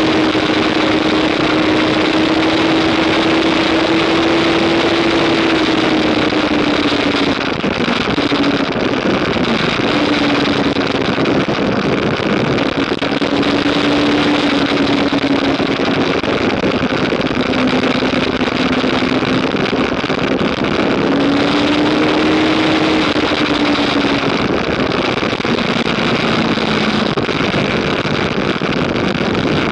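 Onboard sound of a 2015 Yamaha R3's 321 cc parallel-twin engine running hard, its pitch rising and falling with the throttle through corners, under a loud rush of wind on the microphone.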